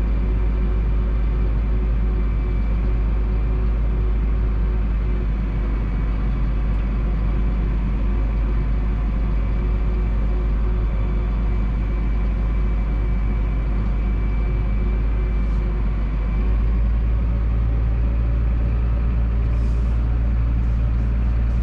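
Massey Ferguson 7718S tractor's six-cylinder diesel engine running steadily, heard from inside the cab, with a steady whine over the drone. About sixteen seconds in, the low drone becomes deeper and a little louder.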